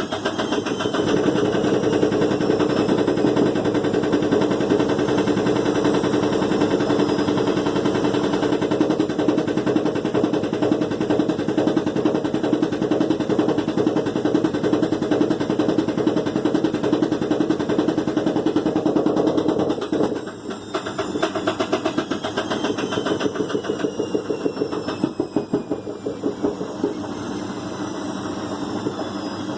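Washing machine with a broken drum spider running out of balance: the drum knocks and rattles rapidly and without a break. About twenty seconds in the rattling drops and goes on more lightly.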